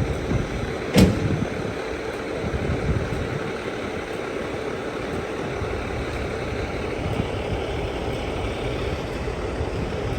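Large truck's engine idling steadily, with one sharp knock about a second in.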